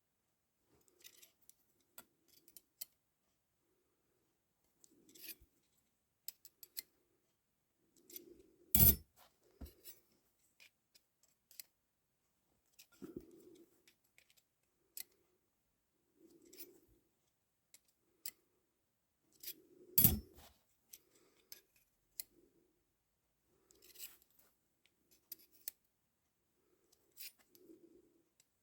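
Light, scattered metallic clicks and clinks as motorcycle clutch steel plates and a measuring tool are handled during a thickness check, with two louder knocks, near 9 s and 20 s, as a plate is set down on the bench.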